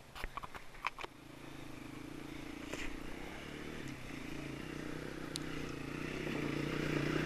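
Honda CRF230F dirt bike's single-cylinder four-stroke engine pulling uphill on a rocky trail, growing steadily louder as it approaches. There are a few sharp clicks in the first second.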